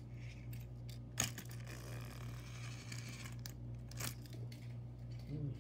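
Handling noises: a sharp click about a second in, then a stretch of rustling and another click a few seconds later, over a steady low hum.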